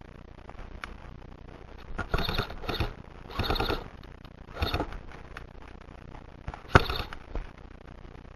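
Airsoft guns firing four short bursts of rapid shots, the last one the loudest.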